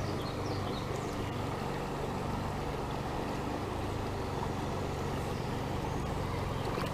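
Shallow riffle of a small trout brook rushing steadily over stones.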